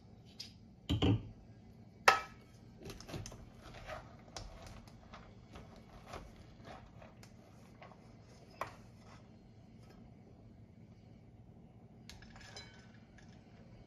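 Kitchen handling of a rice pot: a low thump, then a sharp clink as the glass pot lid is set down, followed by a plastic rice paddle scraping and scooping cooked rice out of an aluminium pot onto a plate, with soft taps and clinks.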